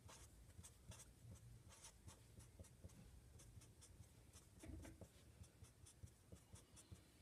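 Felt-tip marker writing on paper: faint, quick scratching strokes, many short ones in a row, as small letters and bond lines are drawn.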